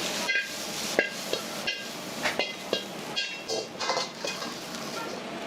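Metal ladle striking and scraping a wok during stir-frying: a string of sharp clanks with short metallic ringing, irregularly about once or twice a second, over light sizzling.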